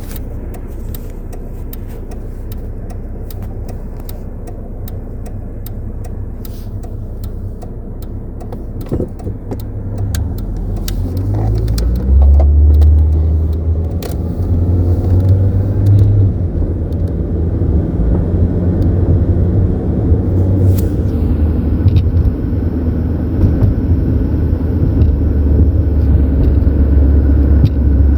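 2011 Ford Ranger pickup engine running steadily and fairly quietly, with scattered sharp clicks, for about the first ten seconds. It then accelerates, rising in pitch, and runs louder with a heavy low rumble as the truck drives on.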